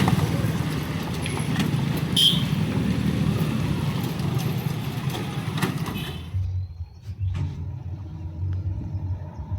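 A passing train: a steady rumble and clatter on the track with a few sharp knocks and a brief squeal. The noise cuts off abruptly about six seconds in, leaving a low, pulsing hum.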